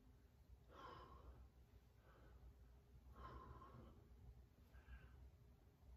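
Faint heavy breathing of a man lifting dumbbells, strong breaths out about every two and a half seconds with softer breaths in between, in time with each repetition of the raise.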